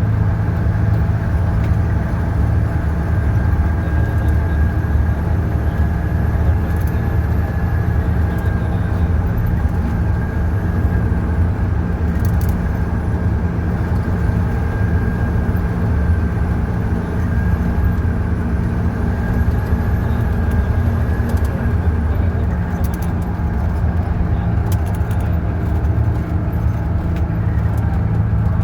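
Ashok Leyland bus's turbocharged diesel engine running steadily on the highway, with a thin high turbo whistle above the engine drone that slowly rises and falls in pitch. A few short clicks or rattles come in near the end.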